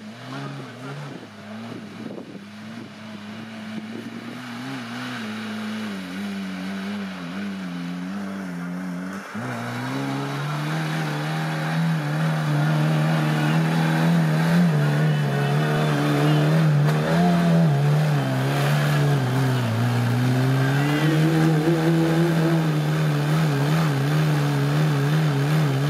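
A 4x4's engine revving under load, its pitch rising and falling, growing louder over the first half and then holding. There is a sudden step up about nine seconds in, and the revs climb again near the end.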